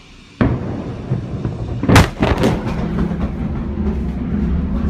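Blast from a chemical warehouse explosion reaching the recording: a sudden deep boom about half a second in, a sharp loud crack with a few more cracks near two seconds, then a steady low rumble.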